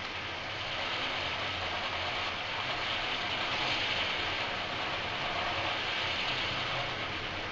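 Homemade neodymium-magnet wind generator spinning in the wind, a steady rushing, whirring noise over a low hum that swells a little about halfway through.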